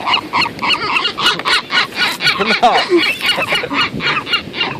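A flock of seagulls calling loudly, many short squawking calls overlapping without pause as they crowd in for popcorn.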